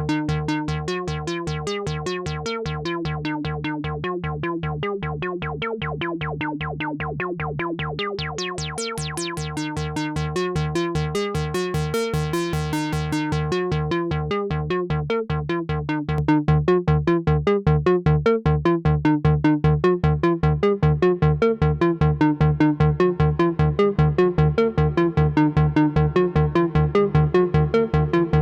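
Behringer Odyssey analog synthesizer playing a fast, repeating sequenced note pattern, about four notes a second, over a steady bass note. Partway through, the filter sweeps open to a bright, buzzy tone and then closes again. The pattern gets louder about two-thirds of the way in.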